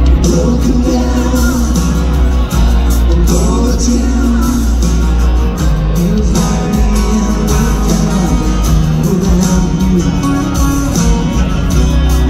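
Live band playing an acoustic song through a stadium PA: strummed acoustic guitars and bass, with a lead singer.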